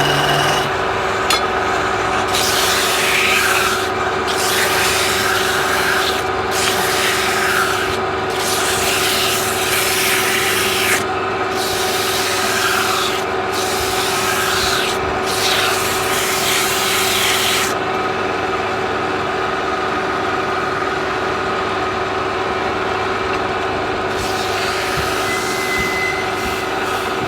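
Wood lathe running with a steady motor hum while sandpaper is pressed against the spinning wood in repeated hissing passes of one to three seconds. The scraping stops for several seconds, then one more pass comes near the end.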